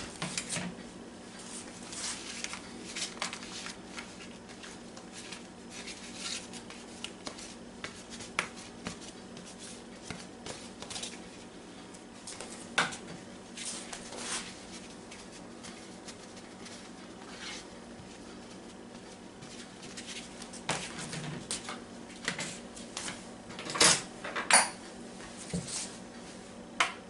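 Light kitchen handling sounds: scattered small clicks and clinks of cookware and utensils, with a few louder knocks near the end, over a faint steady hum.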